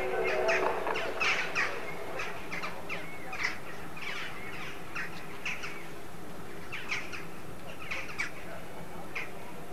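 A flock of birds chirping and calling in many short, irregular calls. They are busiest over the first half and thin out later.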